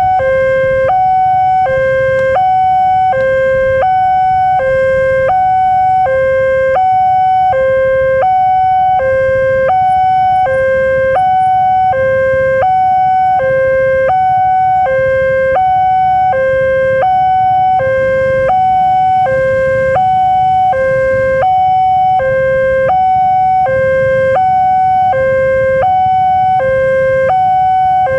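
Railway level-crossing warning alarm sounding from the loudspeaker on the crossing pole: a loud electronic two-tone signal, high and low notes alternating evenly about once a second. It warns that the crossing is closed for an approaching train.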